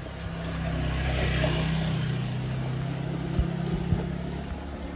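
Small motorbike engine running as it passes along the lane, a steady low hum that grows louder about a second in and then eases off. Two short knocks come near the end.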